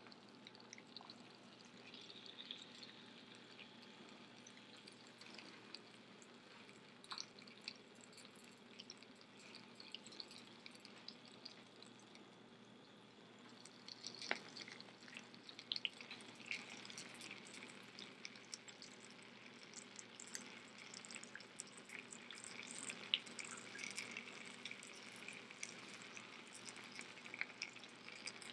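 Oil sizzling faintly in a hot cast-iron skillet, with soft crackles and small ticks that grow denser about halfway through as raw potato slices are laid into the pan.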